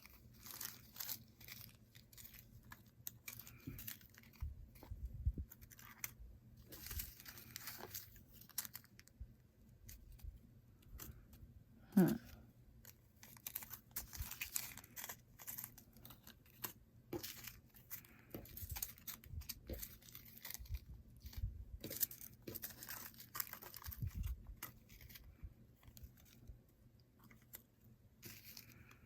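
Small plastic bags of diamond-painting drills rustling and crinkling as they are handled and sorted, with light clicks throughout and one sharper knock about twelve seconds in.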